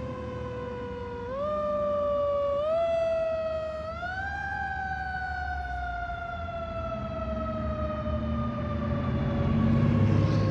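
Fire engine siren sounding as the truck drives off. Its pitch steps up three times in quick succession, then slowly winds down. A low rumble grows near the end.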